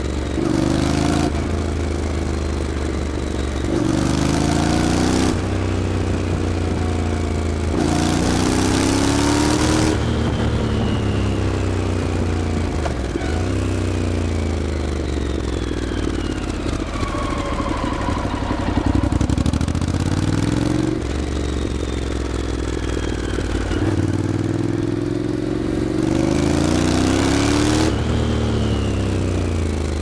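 Honda NC700S parallel-twin engine breathing through a Hurric RAC 1 aftermarket exhaust with its dB-eater baffle fitted, heard from the pillion while riding. The engine note climbs in pitch through several pulls up the gears and drops away between them as the throttle is closed, with a slower, low-revving stretch near the middle.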